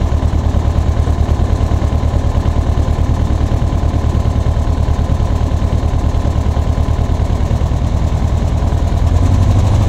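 Light aircraft's piston engine idling with a low, steady pulse, running after a cylinder burst in flight. About nine seconds in it picks up slightly and gets louder.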